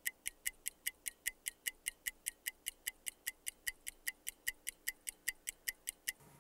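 Mechanical watch ticking steadily, about five sharp ticks a second, stopping abruptly near the end.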